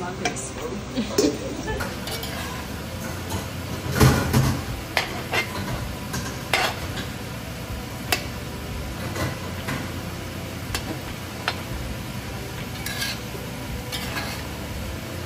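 A metal utensil scraping and clinking against a stainless steel bowl and pan as noodles and vegetables are tipped in and tossed, with a steady sizzle underneath. Repeated sharp clinks, the loudest about four seconds in.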